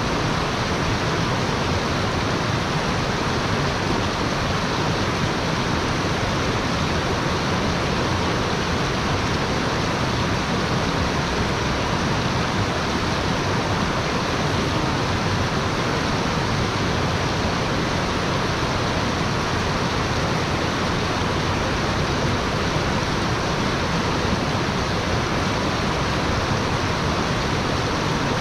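Fast, shallow stream rushing over rocks and small cascades: a loud, steady rush of water.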